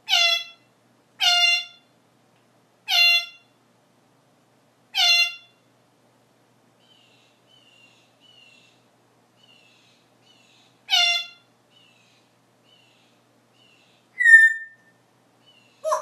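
African grey parrot giving a series of loud calls, each about half a second long: four in the first five seconds and another at about eleven seconds. Soft short chirps come in between, then a short falling whistle near the end.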